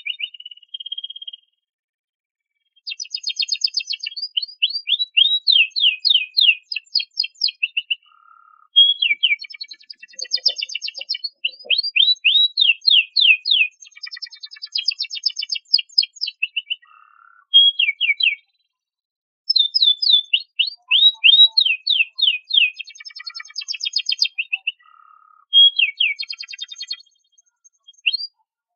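Domestic canary singing: long phrases of rapid, repeated high notes and quick downward-sweeping trills, in several bursts with short pauses between them.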